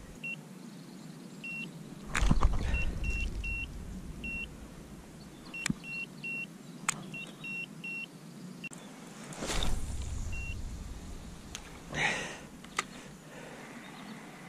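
Short high electronic beeps, a dozen or so at one pitch and uneven intervals. Under them, low rumbling noise swells about two seconds in and again near ten seconds, with a few sharp clicks.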